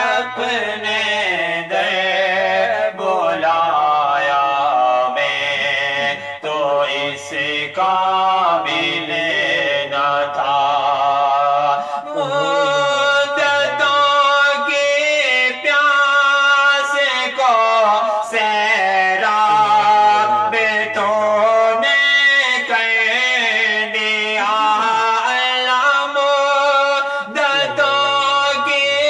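A man's voice singing an Urdu naat, a devotional poem in praise of the Prophet, in long held notes that waver and slide in pitch.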